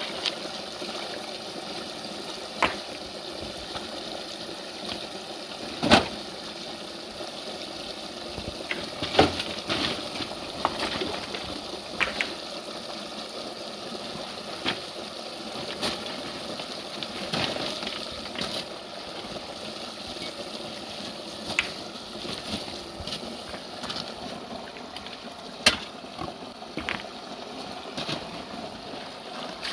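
Water running steadily, with a scattering of short, sharp clicks and knocks, the loudest about six seconds in.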